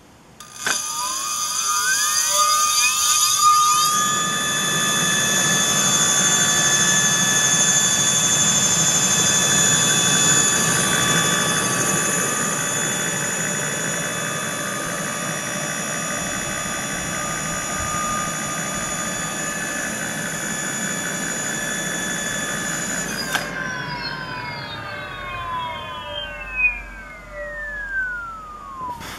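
Brushless direct-drive hub motor spinning up with a rising electric whine, running at a steady high whine, then winding down as it slows, its pitch falling away near the end.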